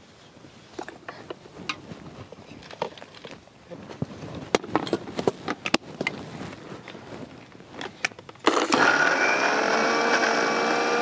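Scattered clicks and knocks of steel mixer-grinder jars and lids being handled and fitted, then, about two-thirds of the way in, several electric mixer grinders switch on together and run with a loud steady whine made of several tones.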